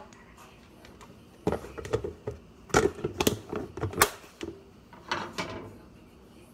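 Kitchen clatter: a utensil clinking and knocking against a bowl and dishes, in irregular clicks. It starts about a second and a half in and stops shortly before the end.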